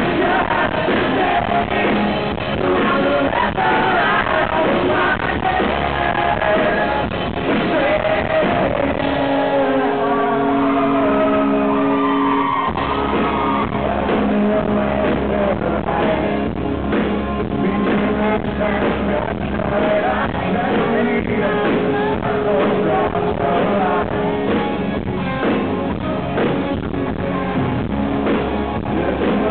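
Live rock band in a large hall: a male lead singer over electric guitars, bass and drums. About nine seconds in, the bass and drums drop out for a few seconds of held chords and voice, then the full band comes back in.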